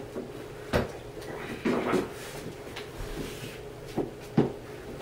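Hollow knocks of large molded-plastic play-set panels being handled and fitted together: one sharp knock about a second in and two more close together near the end.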